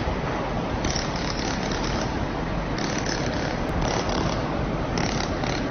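Steady mechanical running noise from a YAG laser welding machine, even in level.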